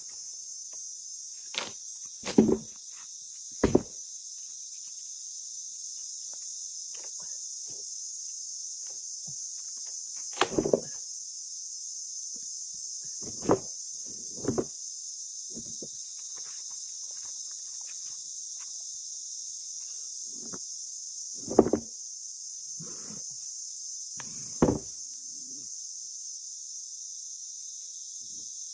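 Steady high-pitched insect drone, with scattered sharp knocks and thumps every few seconds, the loudest sounds.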